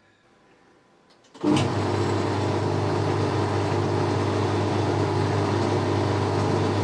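Boxford lathe switched on about a second and a half in, its electric motor and spindle coming straight up to speed and then running with a steady hum.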